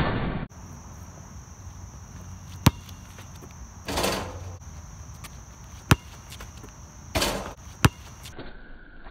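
Basketball play on an outdoor court: a loud clattering hit at the rim as the ball is dunked at the start, then three sharp single bounces of the basketball on the court and two brief clattering hits around the rim, over a steady high-pitched hum.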